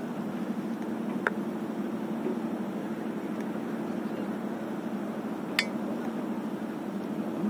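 Steady low hum with two sharp clicks, one about a second in and a brighter one past halfway.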